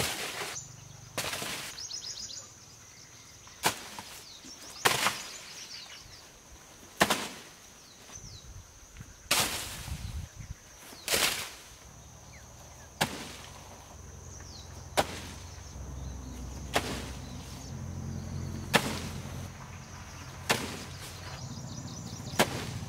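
Sharp thuds of a thrown bamboo spear striking, about a dozen of them, roughly every two seconds. A steady high whine runs underneath.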